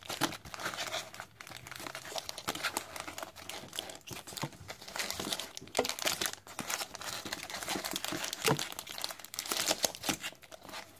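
Foil wrappers of sealed Pokémon booster packs crinkling and rustling as a stack of packs is shuffled by hand, with dense, irregular crackles.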